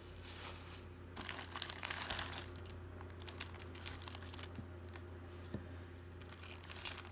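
Plastic crinkling and rustling as small jewelry pieces are handled and sorted, with a few light clicks, over a faint steady low hum. The rustle is busiest about a second in.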